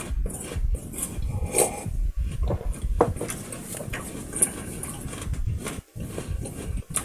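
Close-miked eating noises: irregular chewing with scattered short clicks and knocks.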